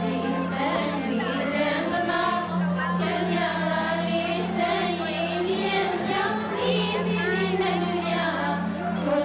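Two women singing together into handheld microphones, with a steady low hum underneath.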